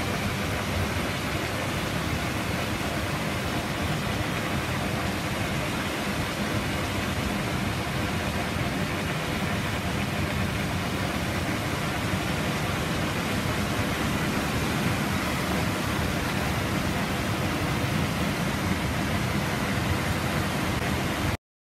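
Steady rushing of whitewater in a fast mountain river, an even wash of water noise that cuts off suddenly near the end.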